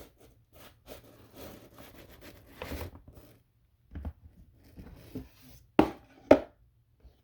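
Rustling and scraping in a snake enclosure during a live-mouse feeding, with two sharp knocks about six seconds in.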